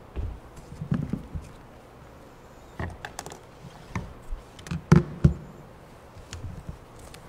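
Scattered light taps, knocks and clicks, with two louder thumps about five seconds in.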